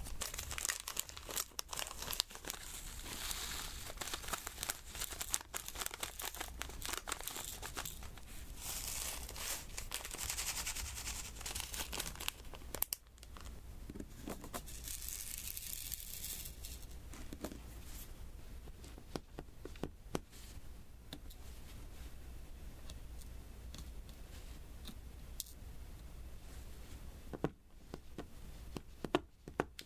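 Close-up handling of a diamond painting canvas: many small clicks and taps as resin drills are pressed onto it. Stretches of crinkly, tearing-like noise come from the sticky adhesive surface and its film.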